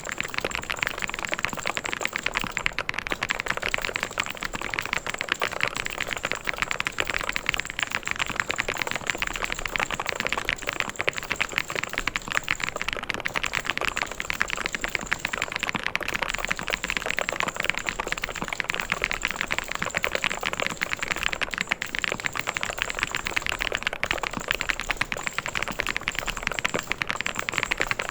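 Mechanical keyboard being typed on continuously at a fast, even pace: a dense run of key clicks and clacks with no pauses.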